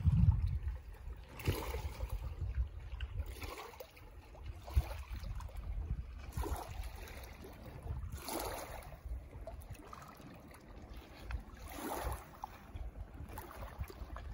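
Small waves lapping onto a stony lake shore, a soft wash about every one and a half to two seconds, over a low rumble of wind on the microphone.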